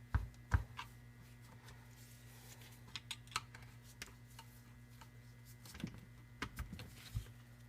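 Scattered light clicks and taps of hand tools and small metal parts being handled on a small engine's casing, a few sharper knocks near the start and again near the end, over a steady low hum.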